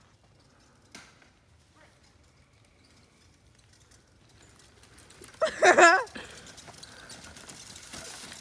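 A person's loud, warbling yell, lasting about half a second, about five and a half seconds in. After it comes a steady rushing noise as a mountain bike rolls over the dirt trail towards the camera.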